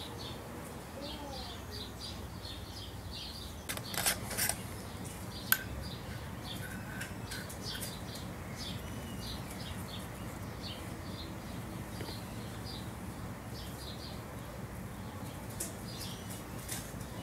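Small birds chirping over and over in the background above a steady low hum. A few sharp clicks and knocks from handling cans of PVC primer and cement come about four seconds in, and the loudest is a single sharp click about five and a half seconds in.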